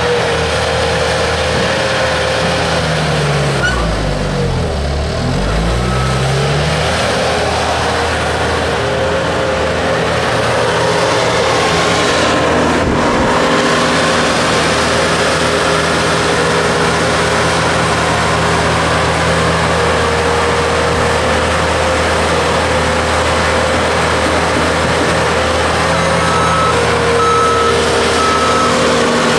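Bobcat S220 skid-steer loader's diesel engine running hard as it digs a bucket of dirt and lifts it over a dump truck's bed. The engine's pitch sags and recovers about four to six seconds in, lugging as the bucket pushes into the dirt pile. A few short beeps sound near the end.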